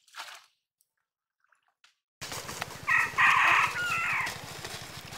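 A rooster crows about three seconds in, a couple of short notes running into a longer call that trails off, over steady background noise. At the start, a brief splash of water as a bamboo polo fish trap is pushed down into the pond.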